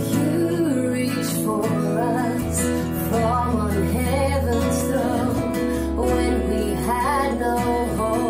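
Worship song: a woman sings the melody over a strummed acoustic guitar. Low sustained bass notes come in about two and a half seconds in.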